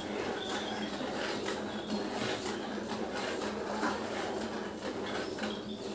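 Hand-milking a cow: streams of milk squirting into a plastic bucket of milk, a short hissing squirt about twice a second as the hands alternate on the teats.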